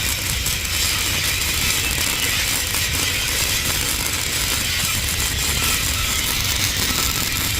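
Electric welding arc on 10 mm steel plate, crackling steadily with a dense, fast, sizzling patter over a low electrical hum.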